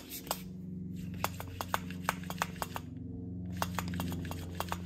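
Small electric air pump switched on and running with a steady hum and a quick, uneven clicking, pumping up a mountain-bike suspension fork's air spring.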